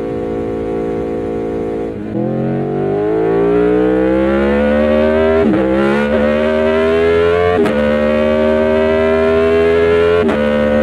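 Aprilia Tuono V4 1100 Factory's V4 engine holding steady revs, then accelerating hard about two seconds in, its pitch climbing through the gears with three quick upshifts, each a brief dip in pitch before it climbs again.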